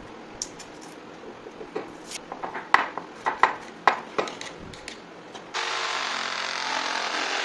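Handling clicks and knocks of a tape measure and pencil on a plywood board, with a few sharp knocks in the middle. About five and a half seconds in, an electric jigsaw starts and cuts through the thin plywood with a steady, loud buzz.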